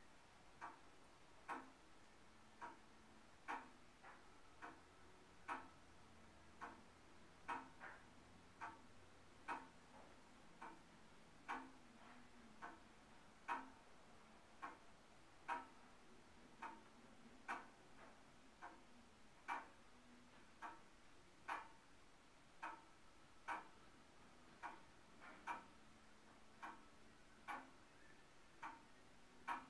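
Tall-case (grandfather) clock ticking steadily about once a second, the ticks alternately louder and softer in a tick-tock.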